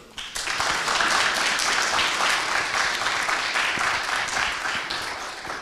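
Audience applauding, a dense patter of many hands clapping that starts about half a second in and eases slightly toward the end.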